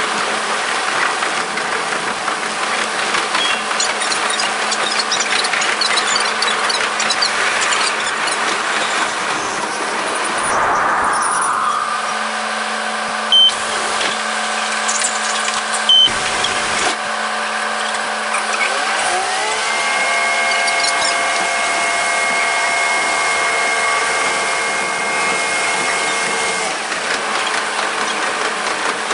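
Sound of a KiHa 47 diesel railcar sped up five times: running noise, a change about a third of the way in as it slows to a stop, then a steady low engine idle with two short loud sounds. From about two-thirds of the way in the engine revs up as the railcar pulls away, its pitch rising quickly and holding steady before easing off near the end.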